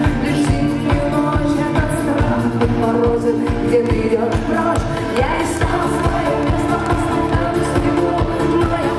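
Live band performing a song: a woman singing lead over acoustic guitar with a steady drum beat.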